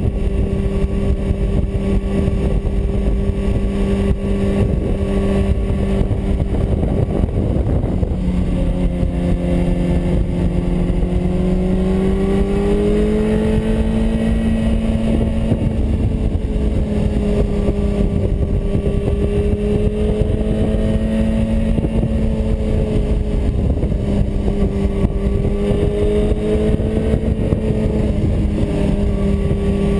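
Sport motorcycle engine running at road speed under heavy wind rush on the microphone; the engine note drops about eight seconds in, then climbs as the bike accelerates and rises and falls gently with the throttle through the curves.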